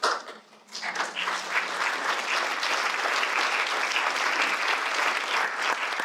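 Audience applauding, starting just under a second in and going on steadily and densely, right after a speaker's closing line.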